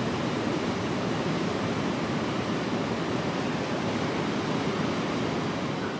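River rapids rushing over rock ledges, a steady, even wash of whitewater.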